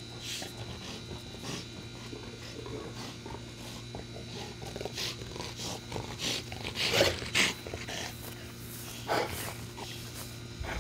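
Two pet dogs at play, making short sharp sounds; the loudest come as a close pair about seven seconds in and once more about two seconds later.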